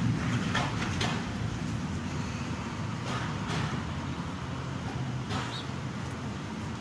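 Street traffic: a steady low rumble of car and bus engines, with a few faint short ticks scattered through.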